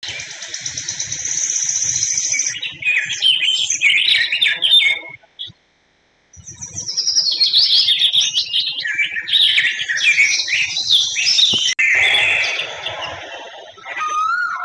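Many birds chirping and calling at once, a dense chorus of quick high chirps that breaks off completely for about a second a little past five seconds in, then resumes.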